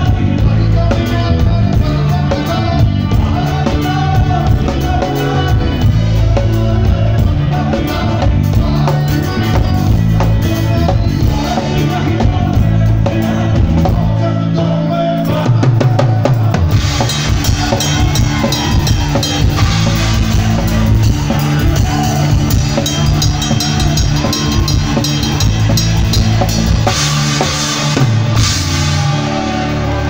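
Live rock band playing: drum kit with bass drum and cymbals driving the beat under electric guitars and bass. A little past halfway the cymbal work gets brighter and busier.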